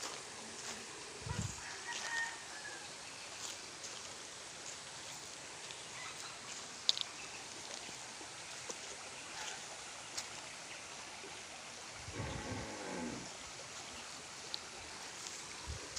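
A rooster crowing once, about twelve seconds in, with scattered crunching footsteps on gravel.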